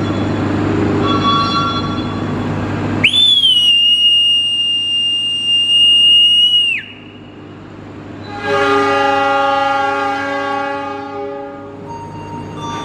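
A railway officer's mouth whistle blows one long departure blast about 3 s in, lasting nearly four seconds and dropping in pitch as it stops. About 8.5 s in, the locomotive's horn answers with one long chord that slowly fades, the driver's signal that the train is ready to depart.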